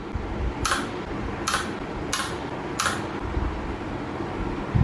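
Battery spot welder firing 0.06-second weld pulses into nickel strip on Li-ion 18650 cells: four short, sharp cracks about 0.7 s apart in the first three seconds, over a steady hum.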